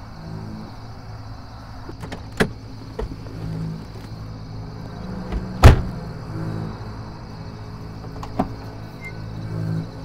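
A car door shutting with a loud thump about halfway through, with a few lighter knocks before and after it, over a low steady hum inside the car.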